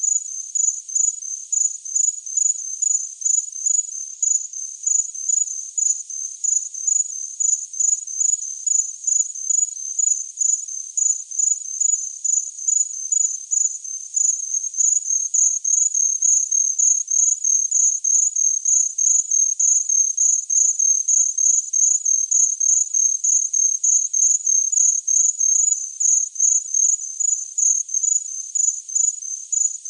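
A cricket chirping steadily: high-pitched, evenly spaced chirps, about two a second, without a break.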